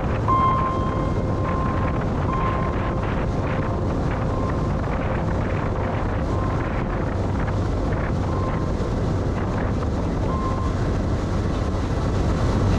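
Motorboat running at speed: a steady engine hum under heavy wind buffeting on the microphone and the rush of the wake. A thin high tone comes and goes on top.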